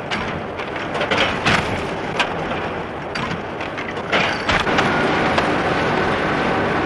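Sugar-cube boxing machine running: a dense mechanical clatter with many sharp clicks and knocks as it moves and fills cardboard boxes. A faint steady whine joins after about five seconds.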